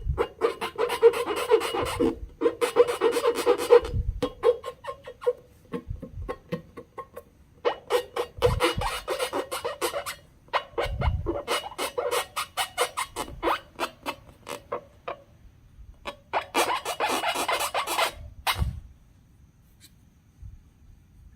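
Slime being squished and worked by hand, with rapid crackling and popping clicks in bursts a few seconds long, separated by short pauses and stopping near the end.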